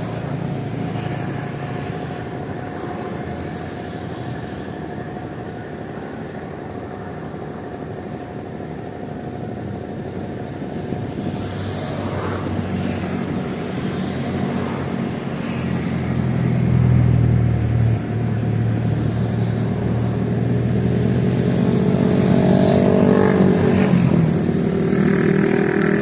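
An engine running steadily, growing louder in the second half, with a shift in pitch near the end.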